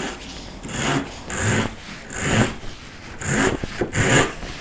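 Japanese replaceable-blade hand saw crosscutting a clamped piece of 2×4 lumber, its blade guided flat along a board jig. Regular sawing strokes, about one a second, each a scratchy rush of teeth through the wood.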